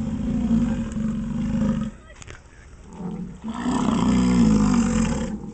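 American bison bellowing: two long, deep roars, the second louder.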